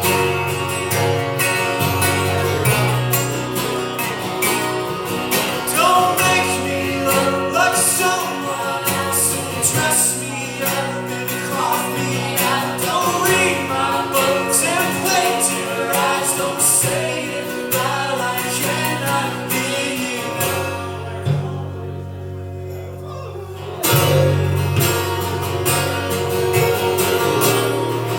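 Live song performance: a guitar strummed and plucked, with a man's singing voice over it. About three-quarters of the way through the playing drops back and softens for a few seconds, then comes back in full.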